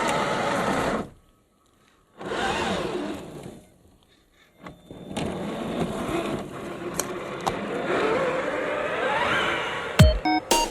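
Electric motor and geared drivetrain of a Traxxas TRX-4 G 500 RC crawler whining as it drives, the pitch rising and falling with the throttle. The sound cuts out briefly twice, and electronic music with a hard beat comes in near the end.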